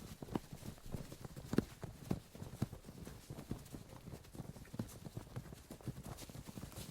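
A group of fighters moving through a forest: many irregular, overlapping footfalls and thuds on the forest floor.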